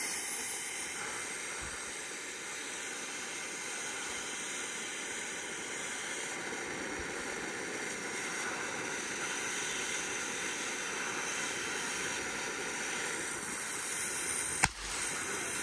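Ground fountain firework spraying sparks with a steady, long-running hiss. A single sharp crack comes near the end.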